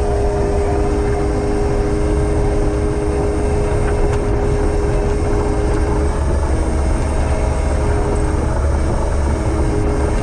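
Heavy diesel logging machine running steadily under load, with a constant whine over a deep engine rumble and a second, lower whine joining about six seconds in.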